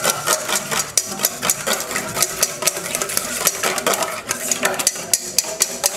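Wire whisk beating raw eggs in a stainless steel bowl, the wires clicking rapidly and rhythmically against the metal.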